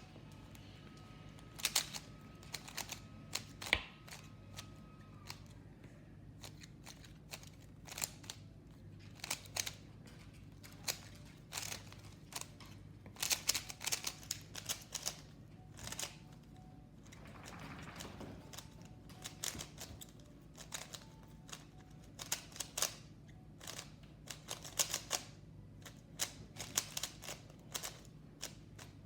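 Rubik's cube being turned fast in a speed solve: plastic layers clicking and clacking in quick, irregular runs of turns with short pauses between them.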